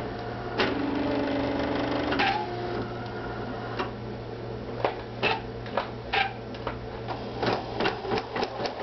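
Pfaff 2170 computerized sewing and embroidery machine starting an embroidery design. A steady motor whine lasts about a second and a half, then clicks that come faster toward the end as it begins stitching.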